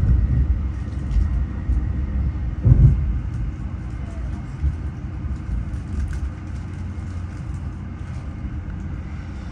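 Low rumble of an NSW TrainLink V set electric intercity train heard from inside the carriage as it runs into a station. The rumble is loudest near the start and again about three seconds in, then eases off gradually as the train slows.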